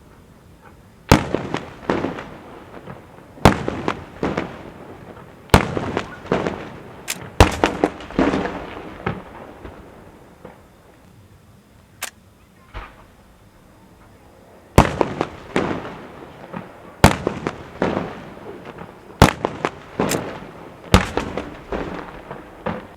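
Fireworks going off: a series of loud sharp bangs, each trailed by crackling, coming every two seconds or so in two runs with a lull in the middle.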